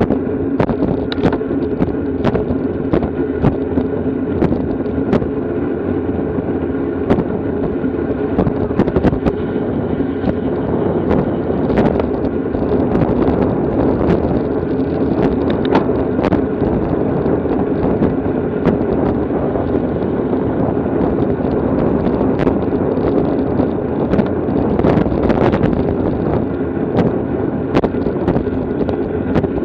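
Steady rushing wind and road noise from a racing bicycle moving at speed, with a constant hum and frequent small clicks and knocks throughout.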